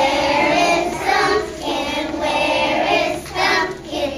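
A group of preschool children singing a song together in unison, in short phrases with brief breaks between them.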